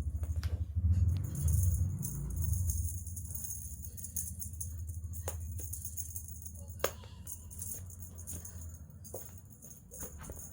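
Music with a light shaker- or tambourine-like rattle over a low, pulsing bass, starting right after a cut and easing off after the first few seconds.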